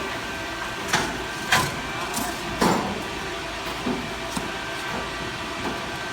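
Industrial wire-mesh welding machinery running with a steady hum, broken by a few irregular sharp metallic clanks, the loudest about a second and a half and two and a half seconds in.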